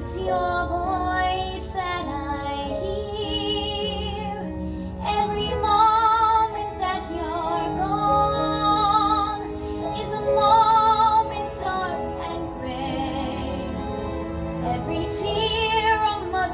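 A woman's voice singing a ballad in long held notes with vibrato, over instrumental accompaniment.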